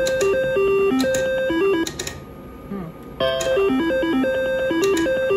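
IGT Double Gold slot machine playing its electronic reel-spin tune, a quick run of short beeping notes. The tune stops about two seconds in as the reels land, and starts again a little over a second later with the next spin.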